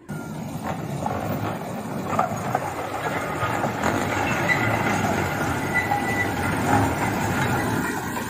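Miniature park train passing close by: a steady rumble of its wheels on the track, with a few short high wheel squeals. The sound comes in suddenly at the start.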